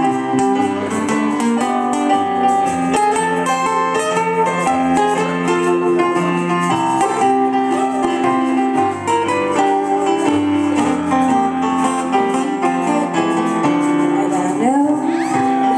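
Acoustic guitar and a Yamaha digital keyboard playing an instrumental passage together, the keyboard holding sustained chords under the guitar.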